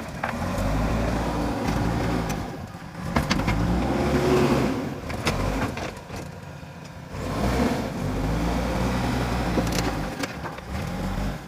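JCB 3DX backhoe loader's diesel engine working, its note swelling under load and easing off three times, with occasional sharp clanks.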